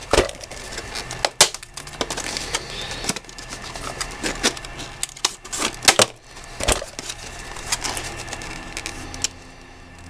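Stiff clear-plastic blister package being cut open with a utility knife and handled: irregular sharp crackles and snaps of the plastic.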